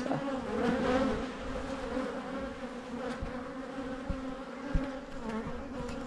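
Steady buzzing hum of a crowded honeybee colony over the open frames of a hive, with a few soft low knocks in the second half.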